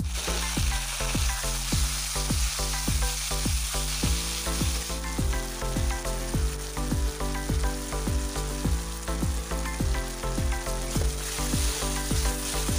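Chopped tomatoes and onions frying in hot oil in a kadai, sizzling hard as soon as the tomatoes go in, while a steel ladle stirs them around the pan.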